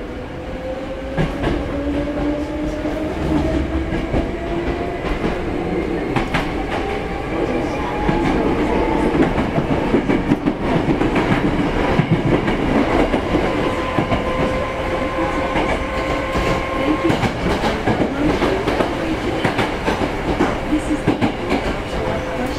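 Hankyu 6300 series electric train heard from inside the car while running: the traction motors' whine rises in pitch through the first nine seconds or so as the train gathers speed, then holds steady, over the rumble of the car and the clack of wheels over rail joints.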